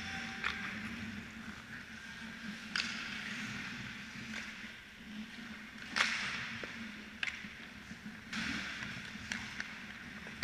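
Ice hockey play: a steady hiss of skates on the ice, broken by sharp knocks of sticks and puck, about six in all, the loudest about six seconds in.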